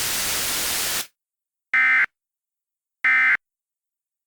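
A steady hiss cuts off about a second in, followed by two short, identical bursts of buzzing electronic data tone about a second apart. These are the Emergency Alert System end-of-message (EOM) data bursts that close an alert.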